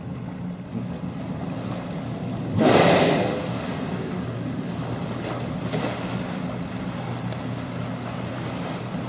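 A humpback whale blowing at the surface: a loud, brief rush of breath about two and a half seconds in, and a fainter second blow about three seconds later, over the steady low hum of a boat's engine.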